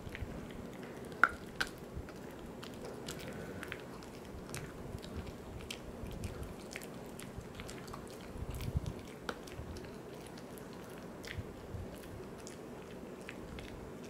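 Poodle chewing a Virbac C.E.T. VegiDent dental chew: irregular crunching and clicks of teeth on the chew, with two sharper cracks about a second and a half in.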